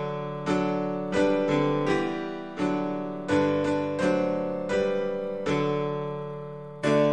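Piano music: chords struck at a slow, steady pace, each ringing out and fading before the next.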